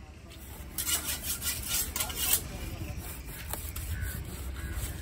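Large knife scraping and slicing through a stingray's flesh along the cartilage, a run of quick rasping strokes in the first half, then quieter.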